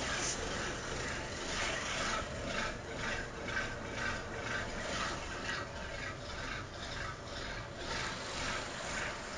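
Rusty old machine running on a test run, its metal parts scraping in an even rhythm of about two strokes a second over a steady running noise.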